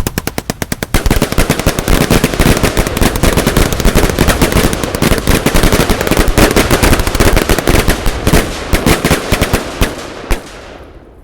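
A 100-shot 18 mm firework cake firing a rapid, continuous barrage of bangs, many shots a second, that thins out and stops about ten seconds in.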